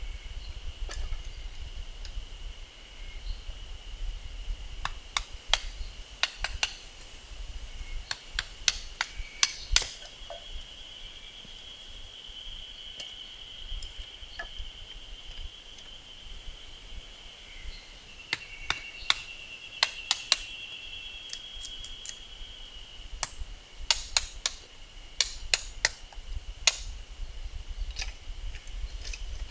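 Firewood being split by hand: irregular clusters of sharp knocks and cracks as the wood is struck, over a steady high insect trill.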